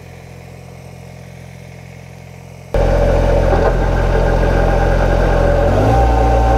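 Kubota BX subcompact tractor's three-cylinder diesel running steadily with its rear-mounted 52-inch chain-drive rotary tiller working the soil. It is faint at first, then abruptly much louder about two and a half seconds in. The engine pitch steps up slightly near the end.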